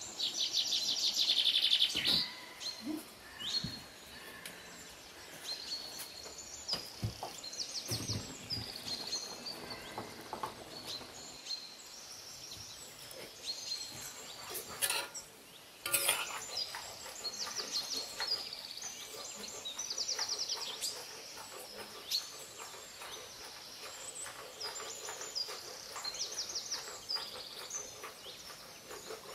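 Small birds chirping, with short rapid trills repeated every few seconds, the loudest right at the start. A couple of sharp clicks come about halfway through.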